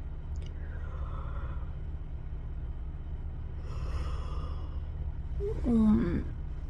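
A woman breathing out audibly twice, then a short voiced sigh about six seconds in, over a steady low hum.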